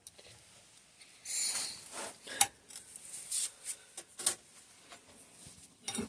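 Hard parts and tools being handled during the teardown of a bicycle suspension fork: a short rustling hiss about a second in, then a string of separate sharp clicks and knocks.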